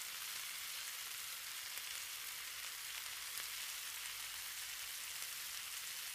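Pork and vegetable pieces (carrot, onion) sizzling in a hot frying pan: a steady, even hiss.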